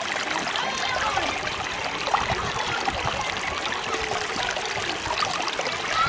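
Shallow mountain stream water trickling and babbling steadily over rocks.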